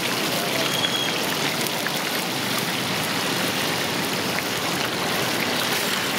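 Hot oil sizzling and bubbling steadily as battered green chilli fritters (mirchi bajji) deep-fry in a large iron kadai.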